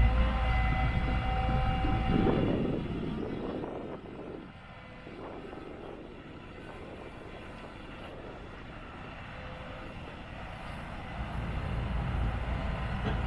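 A 2013 Cat 316EL excavator's diesel engine and hydraulics running with a steady whine and low rumble. It is louder for the first few seconds, drops to a quieter level, and builds up again near the end.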